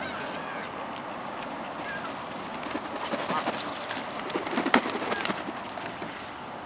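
Canada geese splashing and flapping at the water's edge: a run of irregular splashes and wingbeats in the middle, loudest about three-quarters of the way in. A few short bird calls sound over a steady outdoor background.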